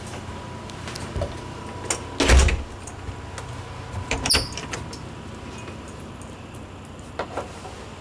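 An RV's wooden interior door being handled: a few light knocks, then a heavy thump about two seconds in, a rattle with a short high squeak around four seconds, and two small clicks near the end.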